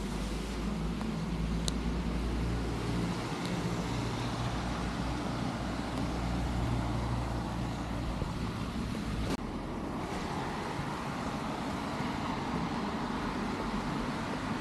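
Steady traffic rumble and hiss from a rain-wet city street, with a low hum underneath. There is a single click about a second and a half in, and a brief drop-out about nine seconds in, after which the low hum thins.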